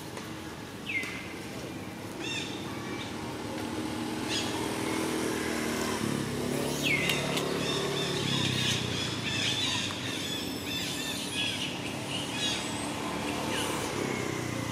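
Birds chirping, a few sharp falling notes and then a busy run of chirps. Underneath, a motor vehicle's engine drones, rising about four seconds in and fading after about ten seconds.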